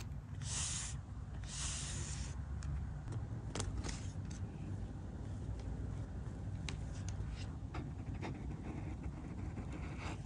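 A plastic scraper rubbed twice across a sticker on journal paper, followed by scattered light clicks and taps of tweezers and fingertips on the paper, over a steady low rumble.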